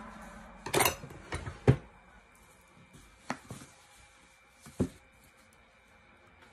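A rigid box being handled and opened by hand: a short scuffing rub about a second in, then a sharp knock, followed by a few lighter taps and knocks spread over the next few seconds.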